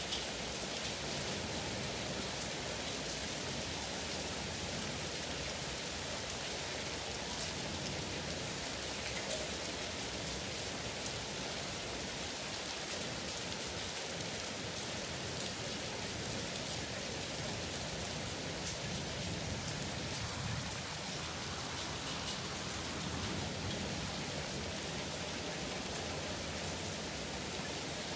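Steady rain falling on a garden, with scattered sharp ticks of drops striking nearby surfaces.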